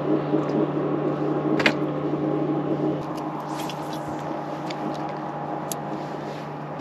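Steady hum of a boat's motor running, easing slightly about three seconds in, with a couple of faint clicks.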